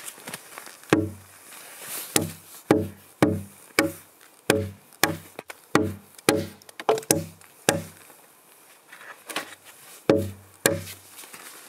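Axe chopping into a squared log to cut a dovetail corner notch: sharp blows about two a second, each with a short low woody ring. The blows stop for about two seconds near the end, then resume.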